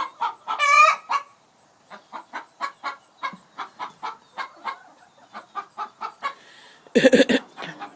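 Chickens clucking in a steady run of short clucks, a few a second, with louder calls a little after the start and again about seven seconds in.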